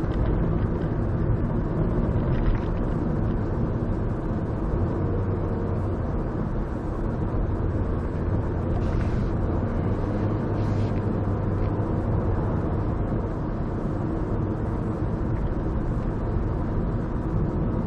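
Car driving on town streets, heard from inside the cabin: a steady low rumble of engine and tyre noise, with a few faint brief higher sounds.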